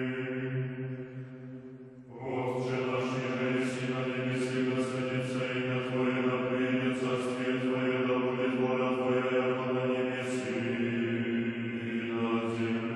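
Orthodox men's choir chanting unaccompanied over a held low bass note. One phrase dies away, and about two seconds in the voices come in again with a new line of sung text.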